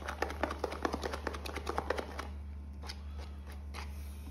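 Stirring a fluffy glue-and-shaving-cream slime mixture in a bowl: quick clicks and scrapes of the utensil against the bowl for about two seconds, then a few scattered taps.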